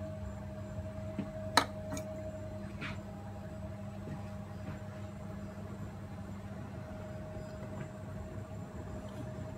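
Steady low hum of a kitchen appliance with a faint high tone over it, broken by one sharp click about one and a half seconds in and a couple of faint taps.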